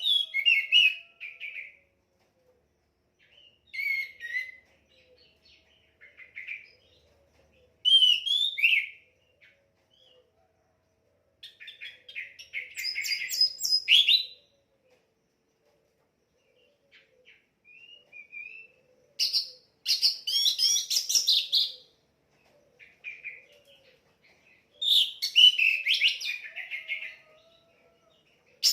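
Orange-headed thrush singing: varied phrases of whistled and chattering notes, each lasting from under a second to about four seconds, separated by short pauses.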